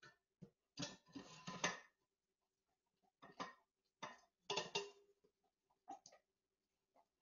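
A German Shepherd nosing at dishes in a stainless-steel sink, the dishes clinking and rattling in short, irregular bursts.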